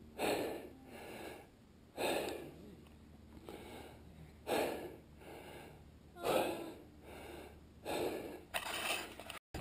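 A mountain biker breathing hard and rhythmically, about five heavy breaths, each a stronger rush of air followed by a softer one.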